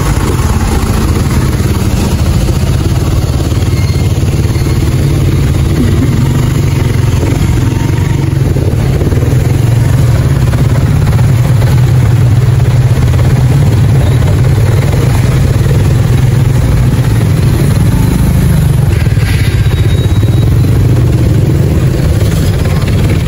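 Motorcycle engine running steadily at low speed as it is ridden slowly through stopped traffic: a loud, continuous low hum that swells slightly in the middle.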